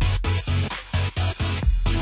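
Electronic dance music with a fast, steady beat of about four thumps a second.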